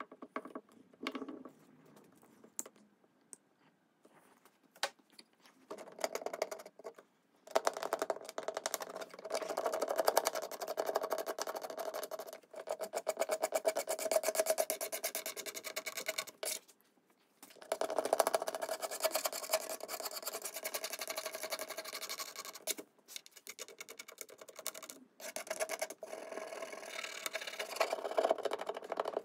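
Fast, scratchy hand rubbing on a mahogany-veneered wooden top as a veneer repair patch is worked flush. The rubbing comes in runs of several seconds with short pauses, after a few light clicks at the start.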